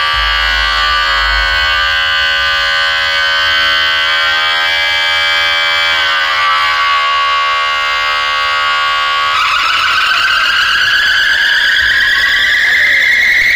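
DJ sound system blasting a loud, buzzy synthesizer drone. Its pitch dips briefly about six seconds in, and about nine seconds in it switches abruptly to rising, sweeping tones, a build-up effect.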